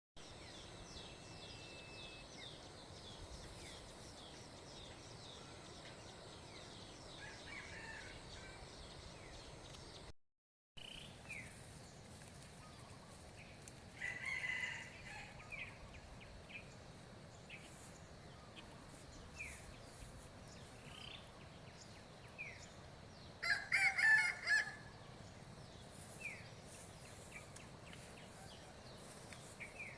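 Small birds chirping again and again over a faint, steady outdoor hiss, with a louder call about halfway through and a longer, louder call a little past the middle. The sound drops out completely for a moment about a third of the way in.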